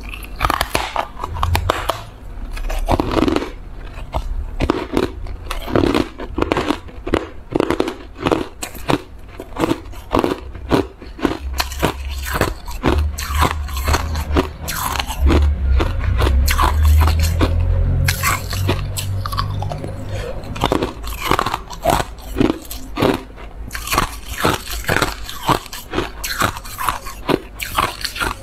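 Chunks of white shaved, frosty ice being bitten and chewed: a fast, irregular run of crisp crunches, with a deeper low rumble under the chewing for a few seconds midway.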